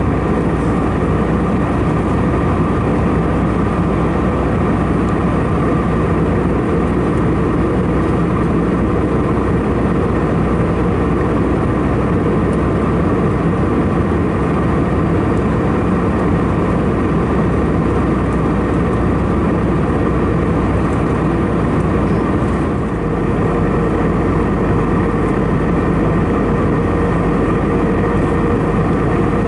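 Steady cabin noise of an Airbus A319 in flight: a continuous rush of airflow and engine drone with a faint steady hum running through it, dipping slightly for a moment about three quarters of the way through.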